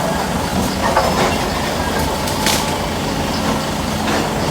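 Heavy demolition machine's diesel engine running steadily while the old wooden building is torn down, with a few sharp cracks and knocks of breaking wood about a second and two and a half seconds in.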